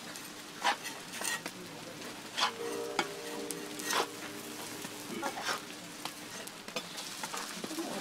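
Okonomiyaki frying on a hot griddle: a steady sizzle, with short sharp scrapes and clicks about every second.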